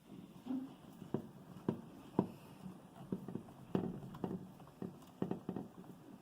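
Irregular light clicks and taps of hands handling electrical wires and a wire connector, joining the black wires of a smart light switch.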